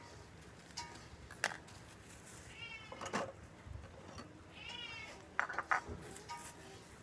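A cat meowing twice, each meow rising and then falling in pitch. Sharp clicks and rustles of packaging being handled come between the meows, and the loudest clicks fall near the end.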